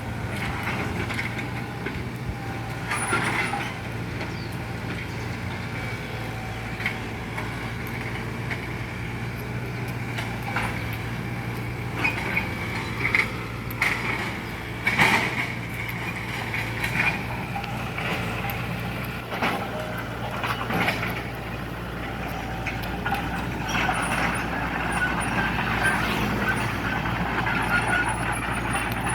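Heavy diesel engine of a truck or road-works machine running steadily, with scattered knocks and clanks.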